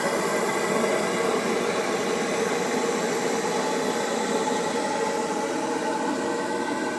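Babington oil burner running: a steady rushing noise with a faint hum in it, unchanging throughout.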